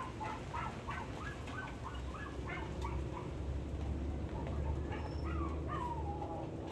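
A dog whining: a run of short, high yelping calls, then a longer falling whine about six seconds in, over a low steady hum.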